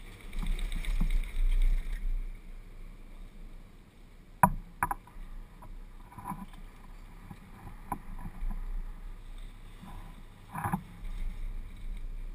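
Chairlift ride: a steady low hum with a louder rush in the first two seconds, then scattered sharp clicks and clanks from the chair and lift, the loudest a pair about four and a half seconds in and another cluster near the end.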